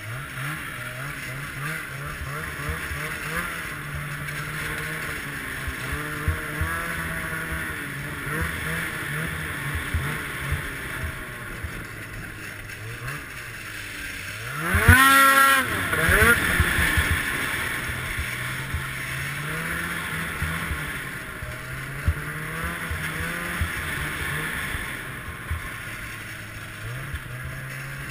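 Ski-Doo Summit X snowmobile's two-stroke engine running under way, its pitch stepping up and down with the throttle. About halfway through comes a sharp, loud rev, its pitch climbing steeply and then falling back.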